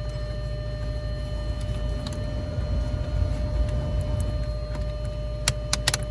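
A steady electronic warning tone from the car held without a break over a low rumble, with a quick cluster of sharp plastic clicks near the end as the dashboard part is pushed into place.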